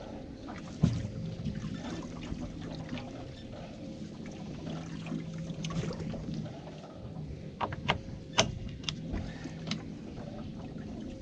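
A fishing boat's engine humming steadily at low idle. A sharp knock comes about a second in, and a quick run of clicks and knocks from fishing gear handled on deck comes about eight seconds in.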